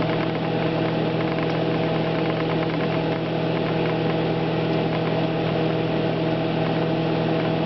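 Microwave oven running with a steady electrical hum and the whir of its fan, eggs heating inside.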